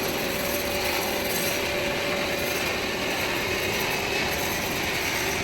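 A machine running steadily with a dense, rattling mechanical noise and a faint held hum.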